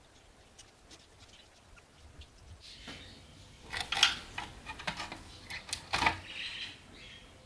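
Liquid sloshing and dripping as a steel file is lifted out of a plastic soaking tub, with the file knocking against the tub, loudest about four and six seconds in.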